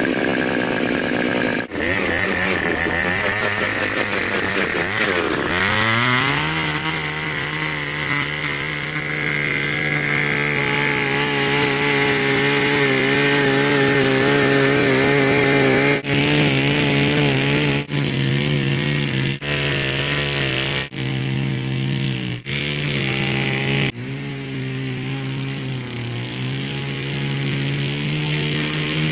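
Earthquake mini cultivator's small two-stroke Viper engine running: idling at first, then revving up about six seconds in. It keeps running at speed with a slightly wavering pitch as the tines till soil. In the second half the sound cuts out and resumes abruptly several times.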